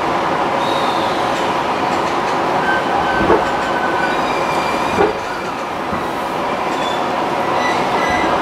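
Interior running noise of a JR 209-series electric commuter train rolling slowly into its terminal platform: a steady rumble with faint high squeals from the wheels coming and going. Two short knocks come about three and five seconds in.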